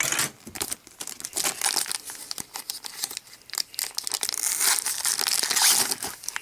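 Plastic wrapping of a trading-card rack pack crinkling and tearing as it is opened by hand. The crackling grows denser and louder in the last couple of seconds.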